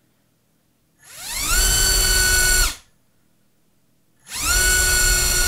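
Flycolor MT2204 2300kv brushless motor spinning a DAL Q5040 prop on a thrust-test stand, run up to full throttle twice. Each run is a fast rising whine that settles into a steady high whine for about a second, then cuts off; the second run starts about three seconds after the first.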